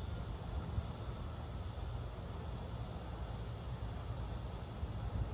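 Outdoor garden ambience: a steady, faint chirring of insects over a low, uneven rumble.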